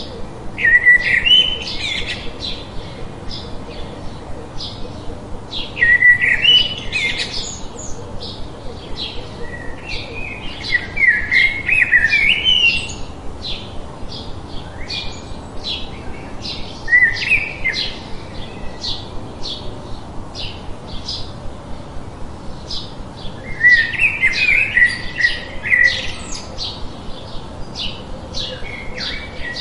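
Forest birdsong: one bird gives short, sharp chirps over and over, about two a second, while longer warbling song phrases break in several times, with a steady soft hiss underneath.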